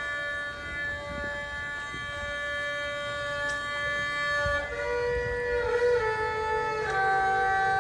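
Slow background music of long held notes in a wind-instrument-like tone. The melody steps to a new note about once a second in the second half.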